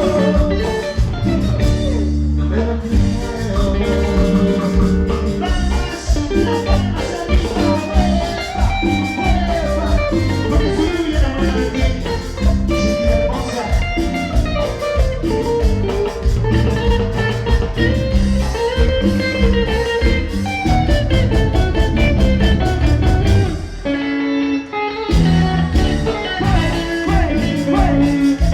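Latin American band music with electric guitar, bass and drums keeping a steady beat, the low end dropping out briefly about 24 seconds in before the band comes back in.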